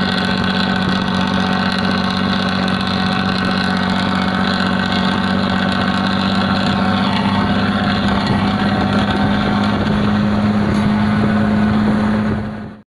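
Hino AK bus's diesel engine exhaust running steadily under way, heard from close behind the tailpipe, its pitch climbing slightly about ten seconds in. The sound cuts off suddenly near the end.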